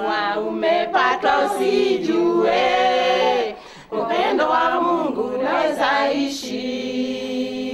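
A group of people, mostly women's voices, singing together in long held notes, with a short break about halfway through.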